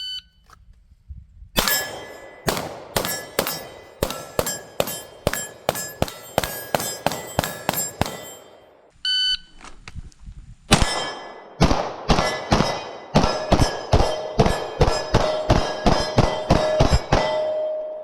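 A shot-timer beep starts a rapid string of pistol shots, each hit on the steel targets ringing out. About nine seconds in a second beep sounds and another fast string of shots and steel clangs follows.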